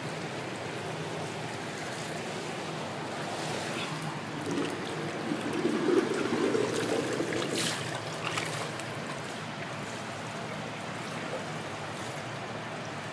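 Water in a whirlpool spa tub churning and bubbling steadily, growing louder for a few seconds around the middle, with a few sharp splashy clicks.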